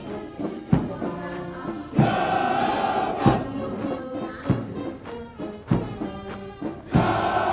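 Military marching music with a deep drum struck about every second and a quarter, and sustained band or massed-voice passages between the beats.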